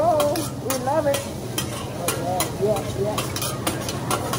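Food sizzling on a teppanyaki hibachi griddle, with frequent sharp clicks of metal spatulas working on the hot steel.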